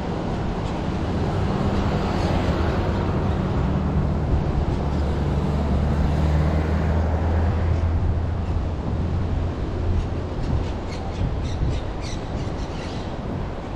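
A motor vehicle's engine running close by, a low steady hum over street noise that fades after about nine seconds. A run of short high-pitched sounds follows near the end.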